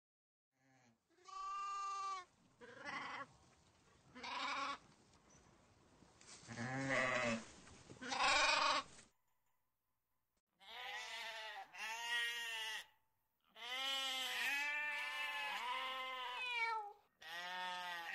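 Farm animals calling: several sheep bleats over the first half, then a flock of geese honking in quick, overlapping series from about halfway on.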